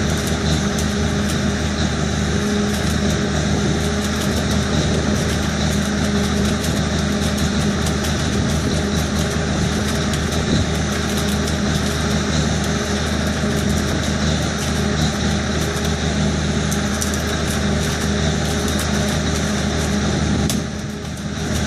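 Rail flash-butt welding: the KCM005 welding head crackles and sizzles as it flashes the clamped rail ends, over the steady drone of the truck's engine. The sound eases briefly near the end.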